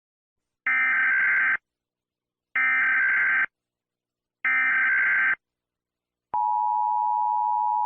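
Emergency Alert System SAME header: three identical short buzzy data bursts about two seconds apart. About six seconds in, the steady two-tone EAS attention signal starts, which announces that an emergency alert message follows.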